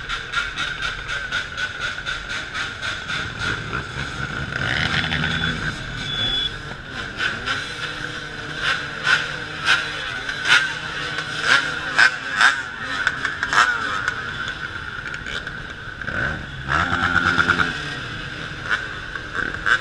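Many enduro dirt-bike engines running as a pack of riders rolls past at low speed, with frequent sharp cracks through the middle. A nearby bike revs up about 4 s in and again near the end.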